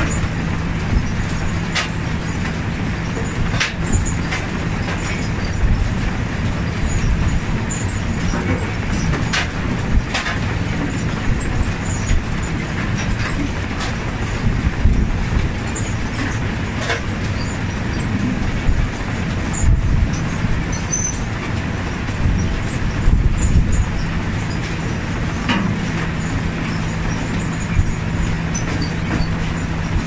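Potato harvester running: a steady machine drone and hum from its engine and conveyors, with scattered knocks and rattles of potatoes tumbling over the picking table.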